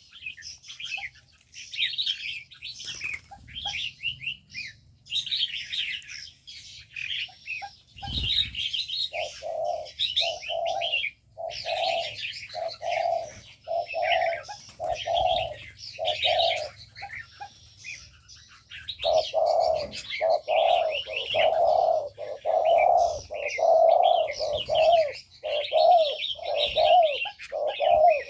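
Spotted doves cooing in an aviary, their low notes repeating from about nine seconds in and growing louder and denser in the last third, over continuous high chirping of small birds. A single thump sounds about eight seconds in.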